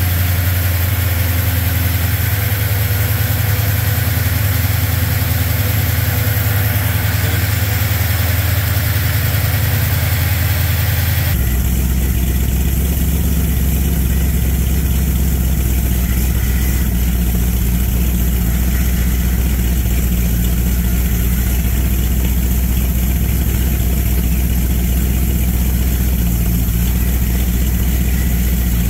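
Small-block Chevrolet V8 with a four-barrel carburettor and open headers, idling steadily on an engine dyno. About 11 seconds in, the sound turns suddenly muffled and deeper, heard from outside the dyno room through its louvered vents.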